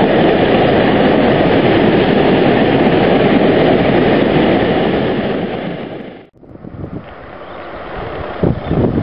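Freight train of bogie tank wagons rolling past at close range: a loud, steady rumble and clatter of steel wheels on rail that fades out about six seconds in. After that, quieter wind buffeting the microphone with a few thumps.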